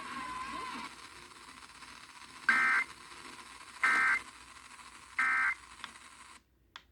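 Emergency Alert System end-of-message tones over a radio broadcast: three short, identical bursts of warbling data tones, evenly spaced a little over a second apart, marking the end of a severe thunderstorm warning. Faint hiss runs under them until the audio cuts off suddenly near the end.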